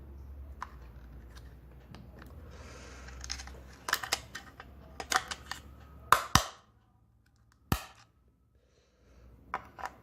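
Two 1.5 V AA cells being fitted into a wireless doorbell's plastic battery compartment: scattered clicks and knocks of handling, with one sharp snap about three-quarters of the way through.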